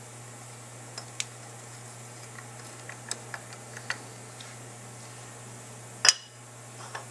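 A screwdriver tightening a steel screw into the cast-aluminium casting of an AC dual-action fuel pump held in a vise, making light scattered ticks and clicks. About six seconds in comes one much louder sharp knock. A steady low hum runs underneath.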